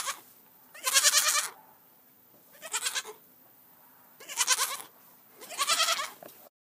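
Goat kids bleating: five short, wavering bleats about a second and a half apart, then the sound cuts off suddenly near the end.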